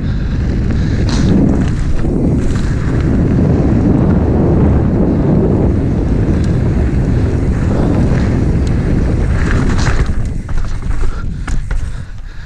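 Wind buffeting the microphone of a mountain bike's ride camera at speed, with tyre rumble on asphalt. A few sharp rattling knocks come near the end as the bike hits bumps.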